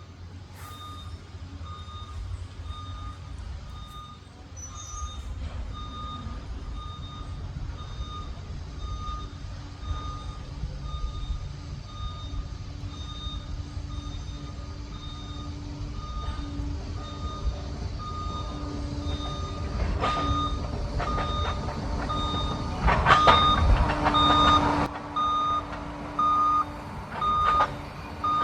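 Liebherr PR 746 crawler dozer's reverse alarm beeping steadily as the machine backs up, over its diesel engine running. About 23 seconds in, a louder stretch of engine and track noise lasts a couple of seconds.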